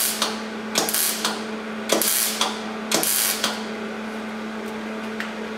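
Arc welding a thick steel patch into a rusted truck fender: short weld bursts of about half a second each, roughly one a second, over a steady hum. The welds stop after about three and a half seconds, leaving only the hum.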